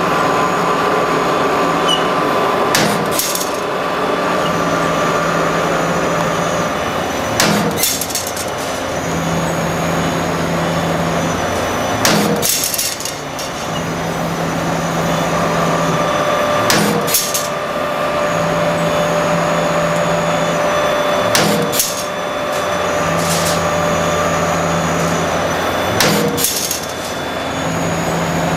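EC-100 CNC spring making machine running steadily through its cycle, with a sharp metallic knock about every four and a half seconds, six times, over a continuous machine hum.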